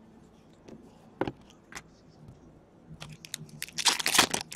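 Trading-card packs and cards being handled: a couple of sharp clicks, then a dense burst of crinkling near the end.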